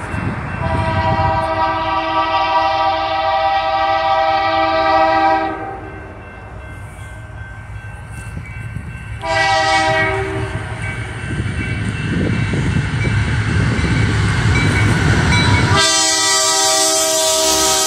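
BNSF GE Dash 9 diesel locomotives on a loaded coal train sounding a multi-chime air horn as they approach: one long blast, then a short blast about nine seconds in. Between the blasts there is the growing rumble of the engines and train. The horn sounds again near the end.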